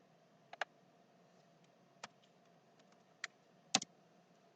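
Computer mouse clicking: about six short, sharp clicks spread out, two of them in quick double pairs, as a cursor is placed and dragged across resistors in a circuit simulator.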